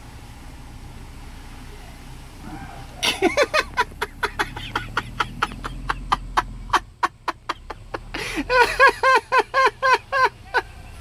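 A person laughing hard: a long run of short, high-pitched laughs that starts about three seconds in, with a faster, louder run of laughs near the end.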